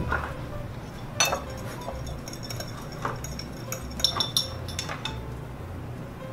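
Metal spoon clinking against a small ceramic bowl as salad dressing is stirred: a few irregular clinks with a brief ringing.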